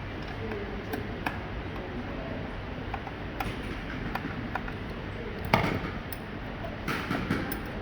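Scattered light clicks and knocks of door lock hardware and tools being handled and fitted, with a louder clatter about five and a half seconds in and another near the end.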